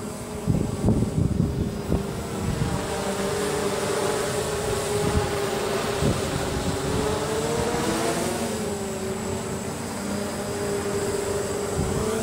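DJI F550 hexacopter's six motors and propellers giving a steady buzzing hum as it flies overhead, the pitch wavering a little about eight seconds in. Wind buffets the microphone in the first couple of seconds.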